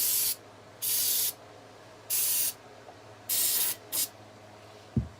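Aerosol can of brake cleaner spraying in short hissing bursts about a second apart, the last one a brief squirt, cutting grease and oil off rifle parts. A single dull thump near the end.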